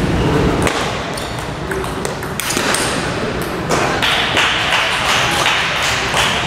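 Table tennis ball repeatedly clicking off rubber paddles and the table, sharp knocks at irregular intervals. From about four seconds in, a steady hiss of room noise grows louder under them.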